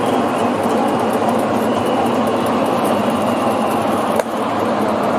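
Steady crowd murmur and hall noise in a domed ballpark, with one sharp pop about four seconds in.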